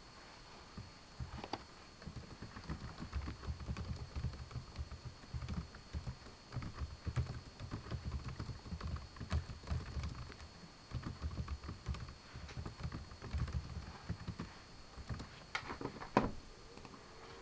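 Computer keyboard being typed on in irregular runs of keystrokes, with one sharper click about a second before the end.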